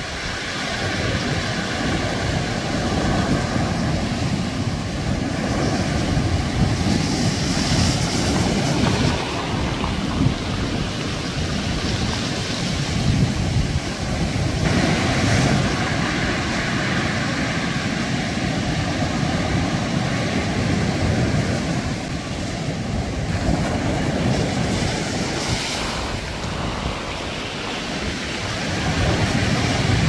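Sea surf breaking and washing up a pebble beach, the wash swelling in surges every several seconds, with wind buffeting the microphone.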